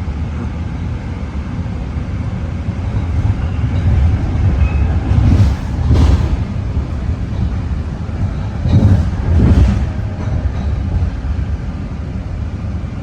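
BART train running at speed, heard from inside the car: a steady low rumble of wheels on rail with two louder swells, about five seconds in and about nine seconds in.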